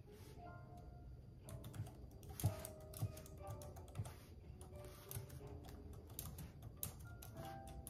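Scattered, irregular clicks and taps of typing, a stroke about every second, over soft background music.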